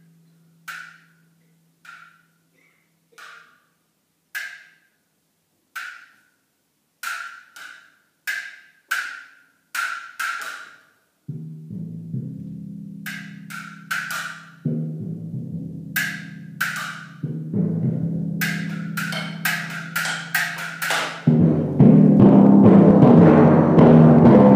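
Timpani solo: a series of short, sharp, dry clicks from the mallets, spaced about a second apart and then coming faster. About halfway through, low ringing timpani notes sound under the clicks, and near the end loud, fast timpani playing takes over.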